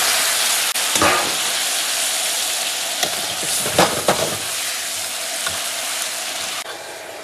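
Chicken heads sizzling in hot oil and chilli bean paste in a wok, stir-fried with a metal ladle that scrapes and knocks against the pan a few times. The sizzling eases near the end.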